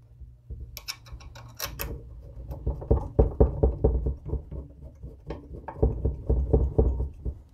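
Metal tool parts being handled against an engine case: a few sharp clicks about a second in, then a run of light knocks and rattles as a cam bearing installer plate is positioned and its thumb screws fitted.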